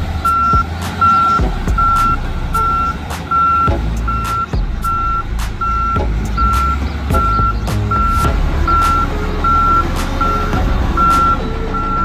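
Backup alarm on a Volvo motor grader beeping steadily at one pitch, about one and a half beeps a second, over the low running of the grader's diesel engine. A few sharp clicks are scattered through.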